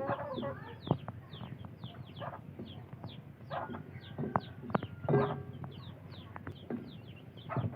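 Chickens clucking, with a few louder calls, over a rapid, high, falling chirping of about three or four chirps a second that runs throughout; scattered sharp clicks sound in between.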